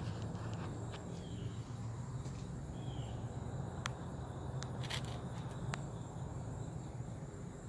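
Outdoor ambience: a faint steady insect buzz over a low steady rumble, with a few sharp clicks around the middle.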